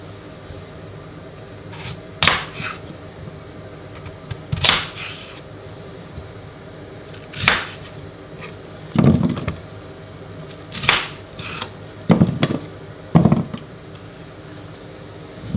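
Knife cutting raw potatoes on a wooden chopping board: about seven separate knocks as the blade goes through to the board, a second or two apart.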